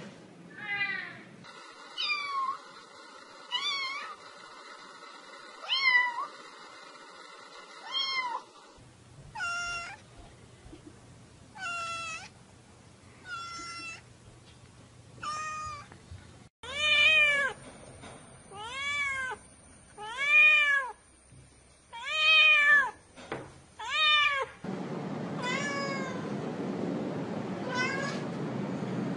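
A domestic cat meowing over and over, about one meow every two seconds, each call gliding up and down in pitch. The loudest meows come past the middle, and in the last few seconds a steady hiss runs beneath them.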